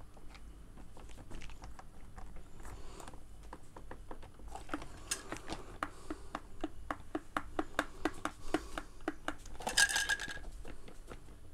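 A plastic RC monster truck toy being handled and turned over by hand: small plastic clicks and taps, getting denser, about three or four a second, in the second half. A brief louder rasp comes near the end.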